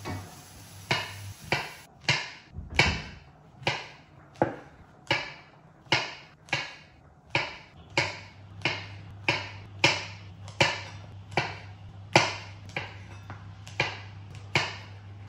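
Kitchen knife slicing white button mushrooms on a plastic cutting board: a steady run of crisp chops, about one and a half a second.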